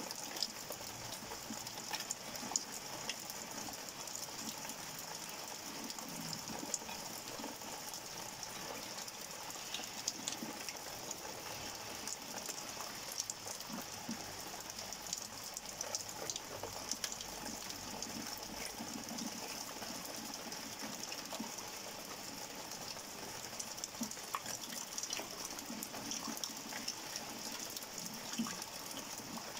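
Steady rain falling at night during a thunderstorm spell: an even hiss with many small, scattered drop ticks.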